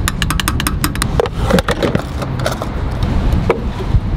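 Refuelling at a gas pump: a quick run of sharp clicks in the first second, typical of a filler cap ratcheting tight or the nozzle handling, then scattered clicks and knocks as the nozzle and fuel door are handled.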